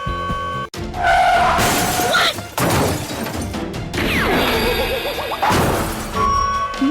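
Background music breaks off after about a second into a run of loud crashing and shattering sounds lasting several seconds, then the music returns near the end.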